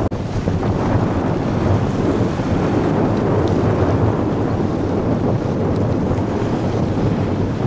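Strong wind buffeting the microphone: a loud, steady, low noise.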